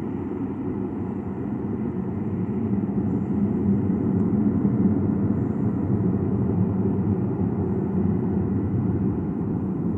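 Low, steady rumble of the Ilyushin Il-76MD's four D-30KP turbofan engines, swelling slightly about halfway through and then easing.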